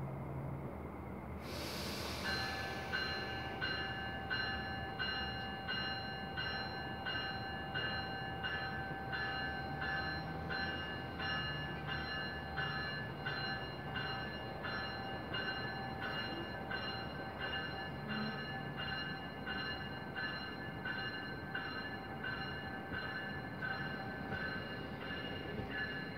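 NJ Transit bi-level commuter train moving slowly along the platform. A short hiss of air comes about two seconds in. Then a steady high whine in several tones sets in and pulses evenly about twice a second over a low rumble as the cars roll by.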